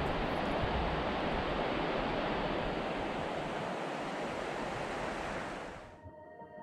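Steady rush of river water flowing over stones, cutting off suddenly near the end.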